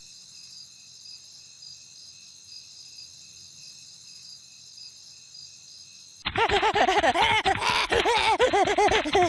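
Night ambience of steadily chirping crickets for about six seconds. Then a cut to a loud run of quick, repeated rising-and-falling squeaky sounds: a cartoon child's giggling as he bounces on his bed.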